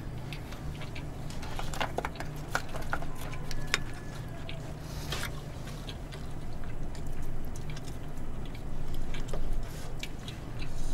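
Eating sounds: scattered light clicks of chopsticks against plastic takeout containers and a bowl, with chewing, over a steady low hum.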